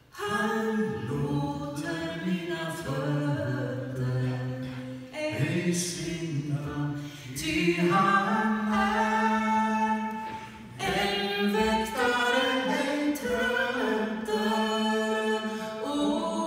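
A woman and two men singing a Swedish folk song together in unaccompanied harmony. The singing comes in at the very start after a moment of quiet and moves in held phrases a few seconds long.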